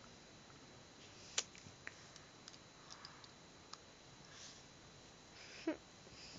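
A few faint clicks over quiet room tone: plastic dental retainers with expanders being pressed back onto the teeth, with one sharper snap about a second and a half in. A brief vocal sound comes near the end.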